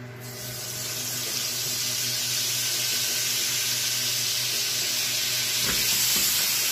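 Artichoke pieces and diced guanciale sizzling in hot fat in a frying pan, a steady hiss that swells over the first second or so.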